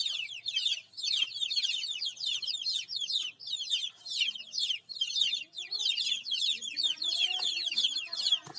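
A group of baby chicks peeping continuously, many high chirps overlapping, each one falling quickly in pitch.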